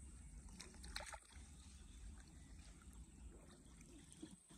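Near silence: a faint low rumble, with a few soft ticks about a second in.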